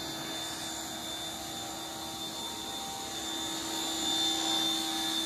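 Pressure washer running steadily, its motor and pump giving a steady hum with a high whine over the hiss of the water jet spraying wicker furniture. It gets a little louder about four seconds in.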